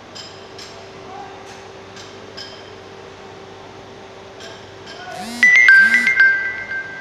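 Assembly-line machinery humming steadily, with scattered light metallic clinks. About five seconds in, a loud high signal tone rings out: a quick run of notes that settles into two held pitches for about a second and a half.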